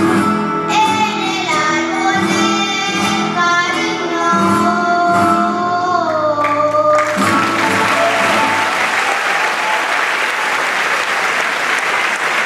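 A child singing the closing line of an Aragonese jota over a plucked-string rondalla, ending on a long held note that glides down. About seven seconds in the song stops and the audience breaks into steady applause.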